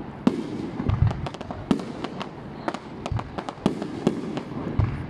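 Fireworks display going off: a dense, irregular run of sharp bangs and crackles, with deeper booms from bursting shells about a second in, around three seconds in and near the end.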